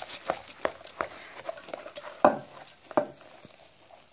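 Spoon stirring puffed-rice bhel mixture in a steel bowl: irregular scrapes and knocks of the spoon against the bowl, the two loudest just past two seconds in and at about three seconds, thinning out near the end.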